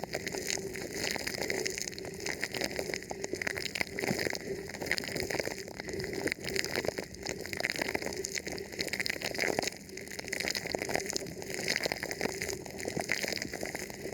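Thin plastic wrapped over a microphone being rubbed and touched: continuous close crinkling and crackling made of many small clicks.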